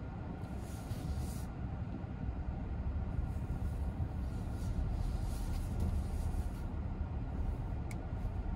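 Inside a Skoda Kodiaq SUV driving slowly: a steady low rumble of engine and tyres, with a higher hiss swelling briefly about a second in and again from about three to six and a half seconds. A single faint tick comes near the end.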